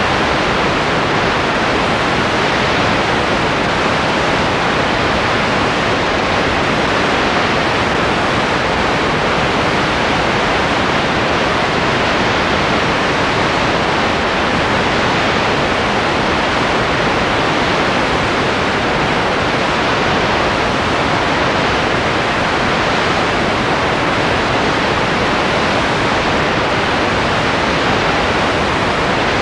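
Steady, even hiss of noise at a constant level, with no other sound in it.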